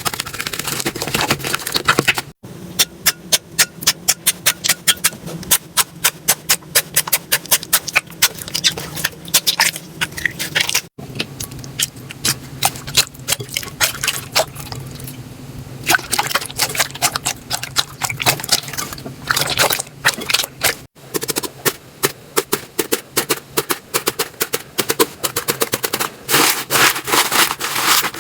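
Slime being squeezed and pressed by hand, making rapid crackling, popping clicks. The sound breaks off abruptly three times.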